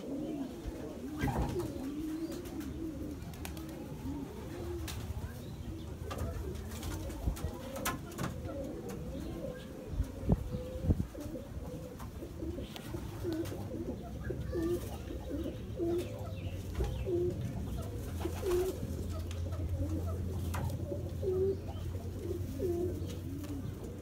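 Pigeons cooing in an aviary, many short low coos overlapping and repeating, more distinct in the second half, over a steady low hum, with a few sharp knocks around the middle.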